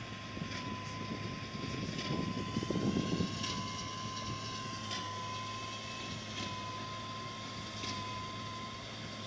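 Tractor engine and baler working steadily, with a constant high whine over the engine drone; the low end swells louder about two to three seconds in.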